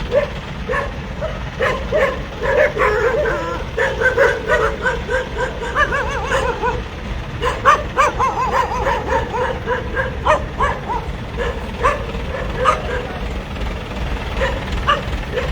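A dog barking and yipping repeatedly over a steady low rumble.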